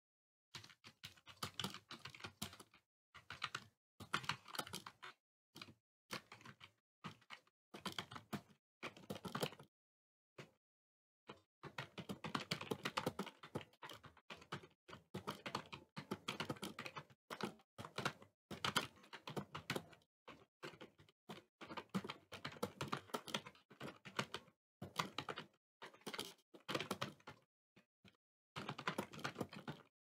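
Fast touch-typing on a computer keyboard, about 65 words a minute: rapid keystroke clicks in runs broken by brief pauses.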